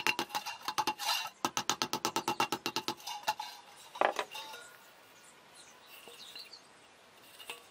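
Rapid hammer taps on a stainless steel bowl, about eight blows a second, each one setting the thin bowl ringing, as the edges of a square hole in its bottom are hammered. The tapping stops about three seconds in, followed by a couple of separate knocks and quieter handling of the bowl.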